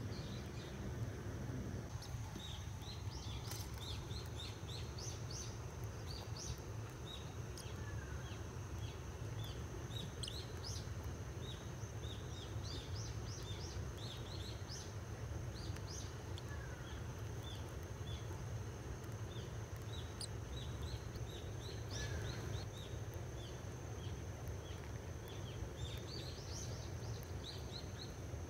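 Many short, high bird chirps scattered irregularly, over a steady low rumble and a thin, steady high-pitched whine.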